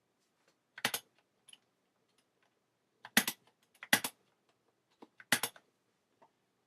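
Short clusters of sharp clicks: one about a second in, then three more near three, four and five and a half seconds, each a quick run of two or three clicks.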